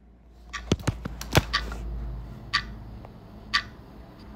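Rubber door seal being pressed and worked onto the edge of a skid-steer cab's door frame: a quick run of clicks and taps, then short chirps repeating about once a second.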